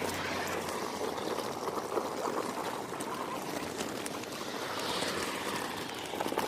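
Wheeled suitcases rolling over a road surface: a steady rough rattling rumble.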